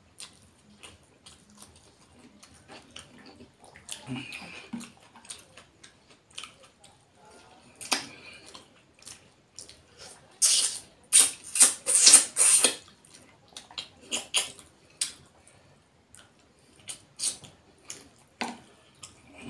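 Close-up eating sounds: wet lip-smacking and chewing as rice and rohu fish curry are eaten by hand, with scattered small clicks. A run of loud wet smacks comes about ten to thirteen seconds in.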